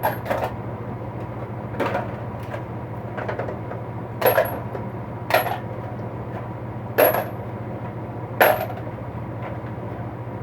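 Metal tools clinking and clattering as they are handled and set down during a tool box clean-out, with about six sharp clinks that each ring briefly.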